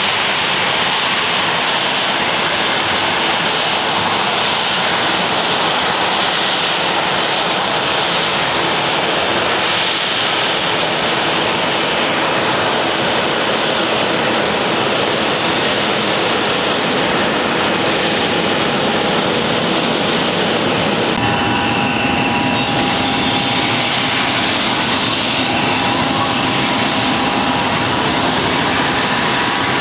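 Boeing 737-800's CFM56-7B turbofan jet engines running as the airliner taxis, a steady loud jet rush. About two-thirds of the way through the sound changes to a closer engine, with steady high whining tones over the rush.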